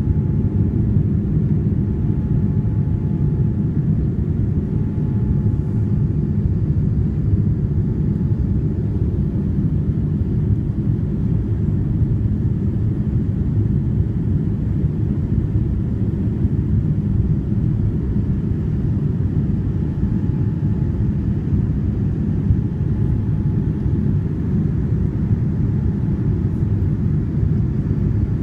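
Boeing 787-9 cabin noise heard from a window seat during the climb just after take-off: a steady low rumble of the GEnx-1B engines and rushing air, even throughout.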